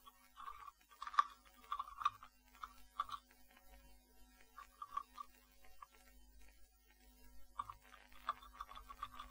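Computer keyboard typing: quick, irregular key clicks, with a pause of about two seconds in the middle, over a faint steady hum.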